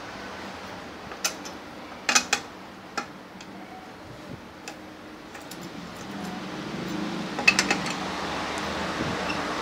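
Steel wrench clinking against the cylinder-head bolts of an air compressor as they are loosened: scattered sharp metallic clicks, with a quick cluster about two seconds in and another near the end. Under them runs a steady hum that grows louder in the second half.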